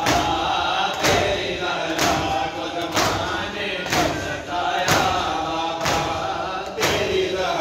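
Shia matam: a group of men beating their chests in unison with open hands, a sharp slap about once a second, under a chanted mourning lament.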